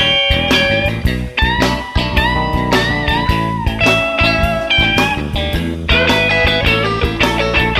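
Blues band playing an instrumental break: a lead guitar solo with bent, gliding notes over bass and a steady drum beat.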